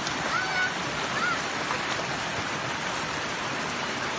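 Fast-flowing muddy stream rushing over rocks, a steady even rush of water.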